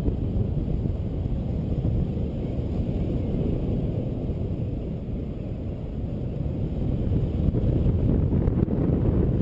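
Steady low rumble of wind buffeting the microphone and inline skate wheels rolling over asphalt at speed. It dips a little about halfway through and builds again near the end.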